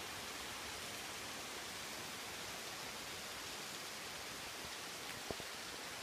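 Steady, even hiss with no pitch or rhythm, and a single faint click about five seconds in.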